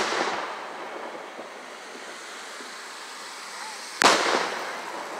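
Two aerial firework shells bursting about four seconds apart. Each is a sharp, loud bang that trails off over a second or so.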